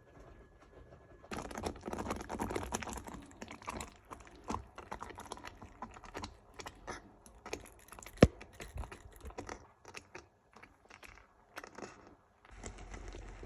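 Kitchen utensils clicking and tapping against cookware or dishes in a quick, irregular clatter, with one sharp knock about eight seconds in.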